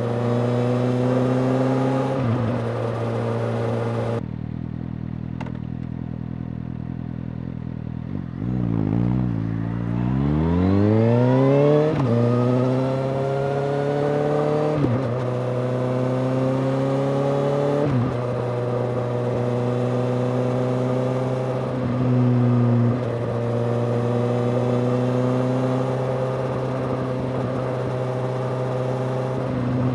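Suzuki GSX-S750's inline-four engine running through a Yoshimura R-77J exhaust, with the bike being ridden. It runs steadily, drops to a quieter, low tone about four seconds in, then rises in pitch as it accelerates and settles back to steady running with small shifts in pitch.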